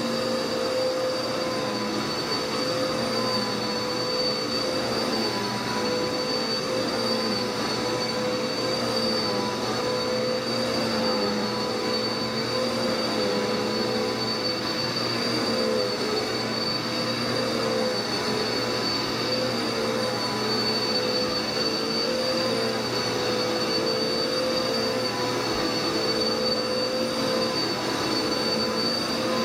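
Dirt Devil vacuum cleaner running steadily: a high motor whine over a constant rush of air, its pitch wavering slightly.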